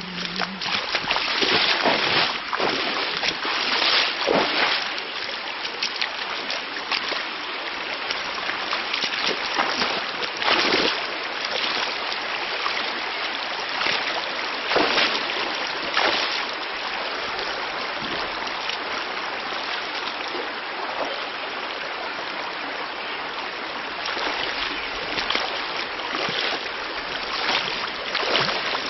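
Shallow river rushing steadily over stones, with irregular splashes as feet wade through the water.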